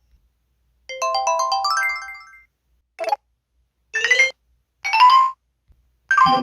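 Built-in electronic sound effects of an MS500 mobile phone: a short rising jingle of quick notes, then four short electronic blips about a second apart.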